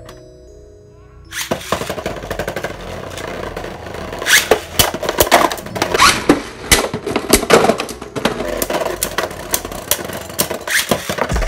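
Background music that comes in after about a second and a half, over many sharp clicks and clacks of Beyblade Burst tops spinning and colliding in a plastic stadium.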